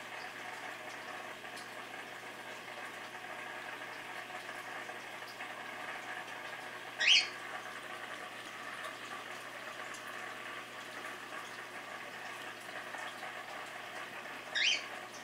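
Steady bubbling hiss of reef aquarium water circulation. Two short, high squeaks that rise in pitch break in, about seven seconds in and again near the end.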